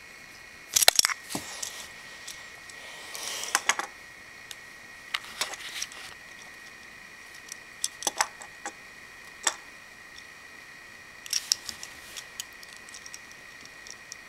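Hard plastic Lego Bionicle parts clicking and snapping as they are handled and pressed together onto ball joints and pins, in irregular clusters of sharp clicks, the loudest about a second in. A faint steady high hum runs underneath.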